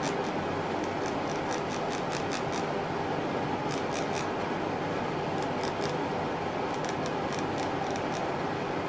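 Steady rasping from rubbing along the ridged wire handle of a small enamel sifter, which shakes its mesh so that vitreous enamel powder sprinkles out; many fine clicks from the ridges run through it.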